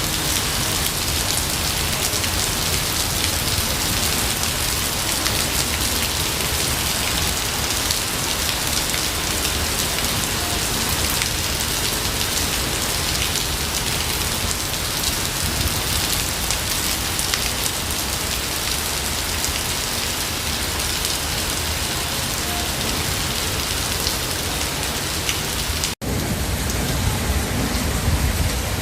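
Steady heavy rain falling on a forest, an even hiss of many drops. Near the end the sound cuts out for an instant and a low rumble of thunder begins under the rain.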